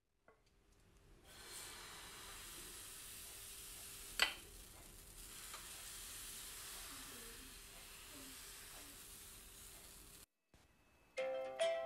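Thin wheat-flour batter sizzling steadily on a hot nonstick pan as it is ladled on and spread out, with one sharp click about four seconds in.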